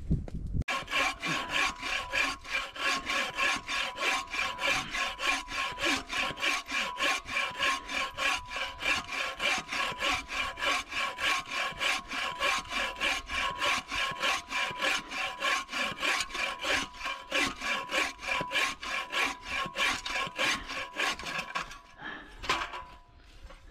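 Hand saw cutting through a dead log in fast, even back-and-forth strokes, about three a second, stopping near the end.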